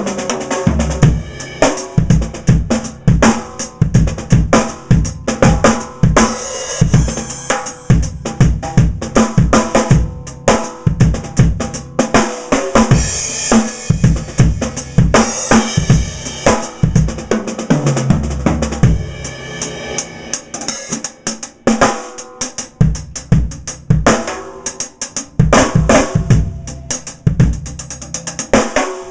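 Drum kit played continuously, built around a Pearl Firecracker steel-shell snare drum, with bass drum, hi-hat and cymbal crashes mixed in.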